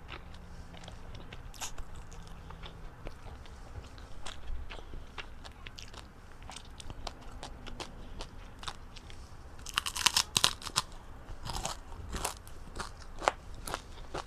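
Close-miked mouth sounds of eating crispy chicken-skin chicharon: scattered small crunches and clicks, then a dense burst of loud crunches about ten seconds in as a fresh piece is bitten, followed by a few more sharp crunches while chewing.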